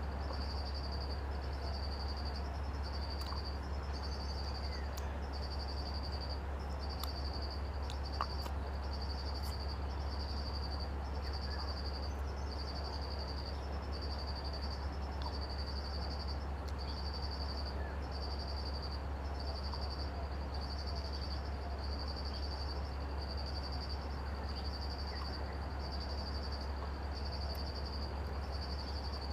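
An insect calling in an even run of high-pitched pulses, about one every second and a bit, over a steady low hum.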